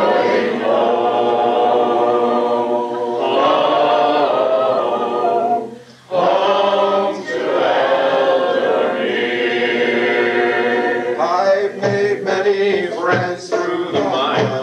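A choir singing unaccompanied, holding long notes, with a short breath pause about six seconds in.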